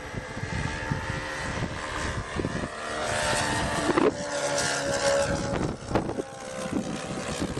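Engines of a large radio-controlled scale model Beech 18 twin-engine aeroplane running with a steady propeller drone, growing louder about three seconds in and easing off again near the end.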